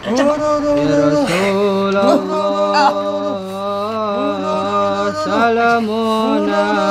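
A voice singing in a wailing, chant-like way: long held notes that bend up and down and slide between pitches without a break.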